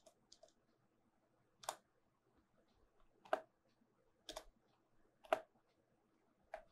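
Computer keyboard keystrokes, single sharp clicks about a second apart after a couple of faint taps at the start, as text is deleted one key at a time.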